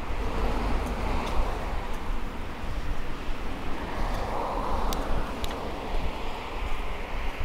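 Riding noise of a mountain bike rolling over a brick-paved cycle path: a steady low rumble with wind on the microphone, a hiss that swells twice, and a few sharp clicks.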